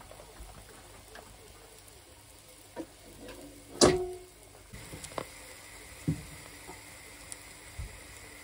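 Kitchen utensil knocks: a black spatula is laid down on a glass plate of stacked pancakes, giving one sharp clink with a brief ring about four seconds in. A few lighter taps and knocks come before and after it, over a low steady background noise.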